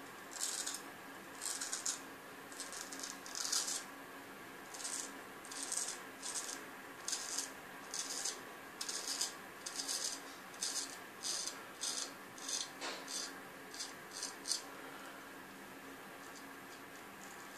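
Early-1900s A.J. Jordan straight razor scraping through lathered beard stubble in a run of short rasping strokes, about two a second, that stop about fifteen seconds in.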